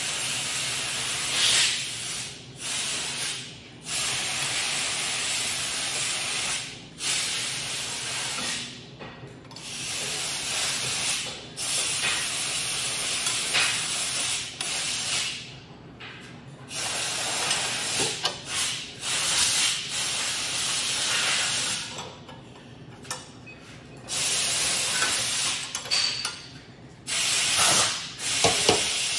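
Compressed-air blow gun blowing machining chips off a workpiece, in repeated loud hissing blasts of one to four seconds with short breaks between them.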